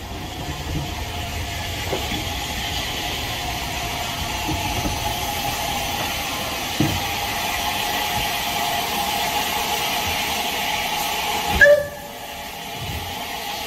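Steady steam hiss and running train noise alongside the air-smoothed Bulleid light pacific 34072, with a short, loud whistle-like blip just before the end.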